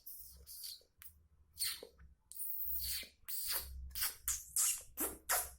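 A person making hissing, chattering mouth sounds in imitation of a bird call: a run of short sharp hisses, with one longer hiss a little before the middle, coming faster in the second half.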